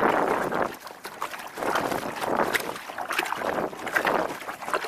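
Small waves slapping and splashing against the hull of a sit-on-top kayak, in surges about every second and a half with little splashes between.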